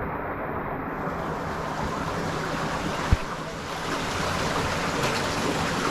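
Water sloshing and splashing steadily as a caver moves through a flooded cave passage, with one sharp knock about three seconds in.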